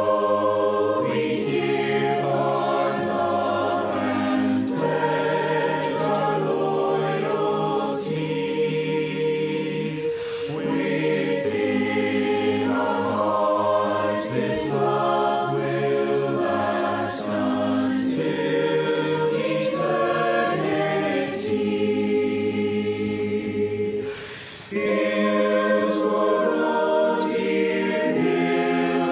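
Mixed high school choir singing a school alma mater in sustained chords, a virtual choir of separately recorded voices mixed together. There is a brief break between phrases about 24 seconds in.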